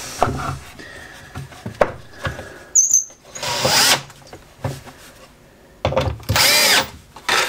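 Hand work on a homemade belt sander: a few clicks and knocks of parts being fitted, then two longer rasping rubs as a sanding belt is handled, the second with a wavering squeak.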